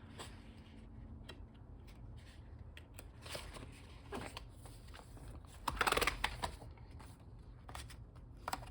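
Paper pages of a disc-bound Happy Planner being handled: rustling and light clicks, with the loudest rustle about six seconds in.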